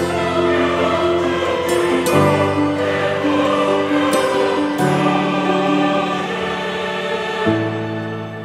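Background music with choir-like voices holding slow, sustained chords that change about every two and a half seconds.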